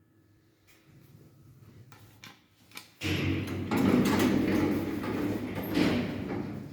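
Automatic sliding doors of a Soviet MLZ passenger lift running along their track for about three seconds, starting suddenly about three seconds in. A couple of faint clicks come shortly before.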